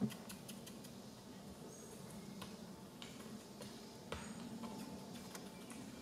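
Quiet outdoor background with a few faint clicks and knocks, the sharpest about four seconds in, and brief high chirps.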